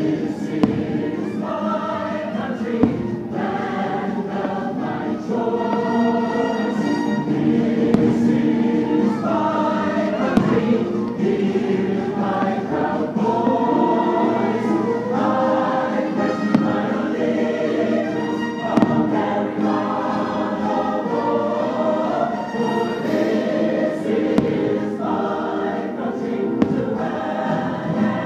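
Choir singing over an orchestral show soundtrack, with a few sharp firework bangs scattered through it.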